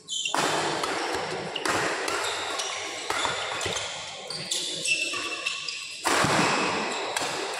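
Badminton doubles rally: rackets striking the shuttlecock with sharp hits, roughly one every one to one and a half seconds, each ringing on in the large hall's echo.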